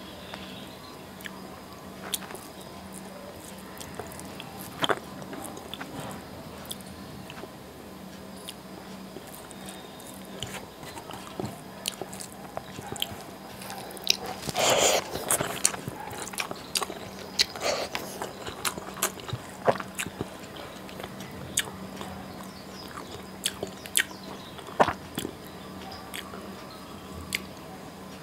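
A man eating rice and fish curry with his fingers, up close: chewing and mouth clicks, with rice being squished and mixed by hand on a metal plate. The sounds are loudest and thickest about halfway through, over a faint steady hum.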